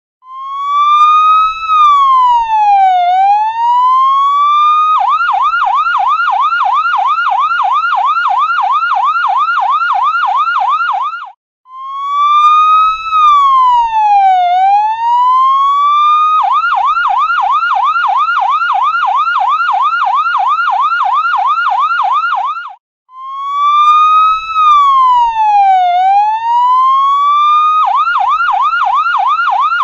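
Electronic ambulance siren in a repeating cycle: a short break, then one slow sweep that rises a little, falls and climbs back over about four seconds, then a fast yelp of about four or five quick sweeps a second for some six seconds. The cycle comes round three times.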